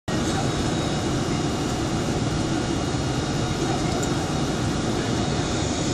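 Steady in-flight cabin noise of a Boeing 747-400, heard from inside the cabin: the jet engines and the rush of air along the fuselage make an even, unbroken din, strongest in the low end.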